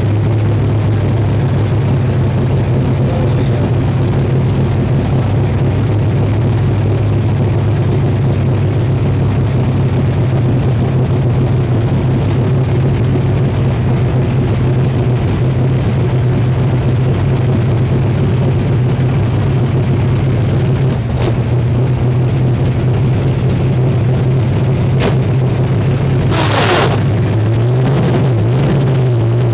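Drag race car engine idling loudly and steadily, heard from inside the cockpit. Near the end there is a brief burst of hissing noise, after which the engine's pitch wavers.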